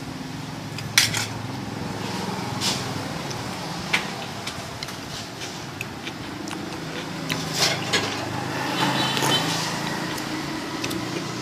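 Metal spoon and fork clinking and scraping against a ceramic plate while eating rice, a handful of separate clinks with the loudest about a second in, over a steady low hum.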